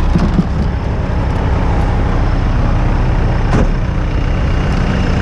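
Off-road vehicle engine idling, a steady low drone, with a single sharp click about three and a half seconds in.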